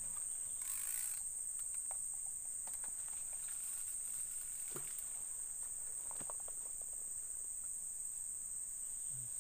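Insects in the riverside forest, a steady high-pitched drone. A brief rushing noise comes about a second in.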